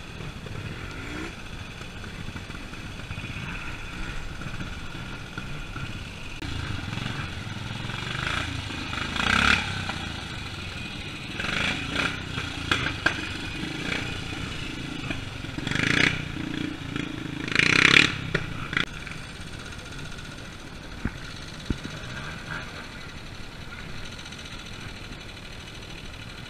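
Trials motorcycle engine running at low revs, then revved in about five short, sharp bursts in the middle as the bike is ridden through the section. A couple of sharp clicks follow near the end.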